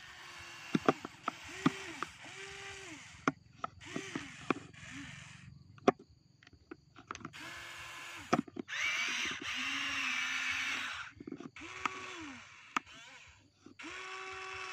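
Remote-control toy excavator's small electric motors whining in short runs of under a second as the arm and bucket move, each run rising, holding and dropping in pitch. Sharp clicks and knocks come between the runs, and a longer, louder, rougher run comes about nine seconds in.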